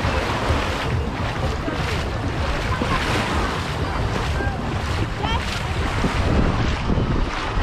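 Sea waves washing onto the beach with wind buffeting the microphone in a steady low rumble, and faint voices in the background.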